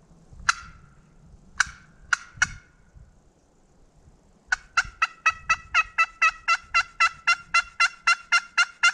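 Wild turkey calls, played on a phone: four sharp single notes in the first couple of seconds, then from about halfway a long, evenly paced run of yelps at about four a second.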